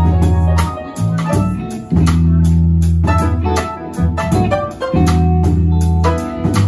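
Live band music from piano, electric bass, electric guitar and drum kit: long low notes held for a second or more, with a steady beat of drum and cymbal strokes over them.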